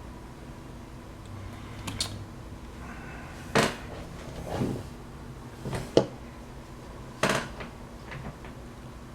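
Knocks and clatters of things being handled and set down on a hard surface, about six in all, the sharpest about six seconds in.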